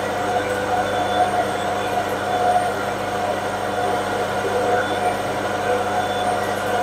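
Metal lathe running steadily under a turning cut, its motor and gearing humming evenly while the tool takes about 1.2 mm off the diameter of a round metal workpiece.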